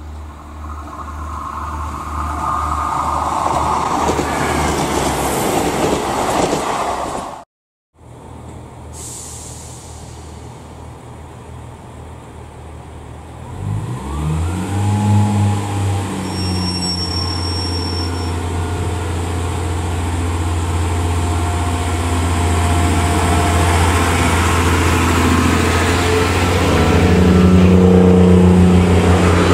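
Diesel multiple unit trains: first a unit running along the line and growing louder. After a brief cut to silence, a Class 143 Pacer's underfloor diesel engine revs up about halfway through and settles into a steady running note that slowly grows louder.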